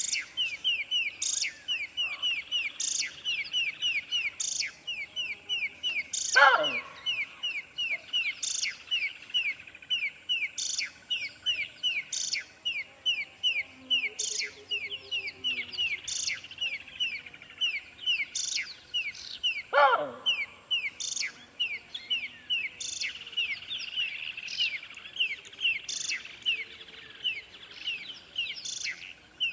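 Birdsong: a rapid, steady run of short downward chirps, about five a second, joined by a louder call that glides down in pitch about six seconds in and again around twenty seconds in.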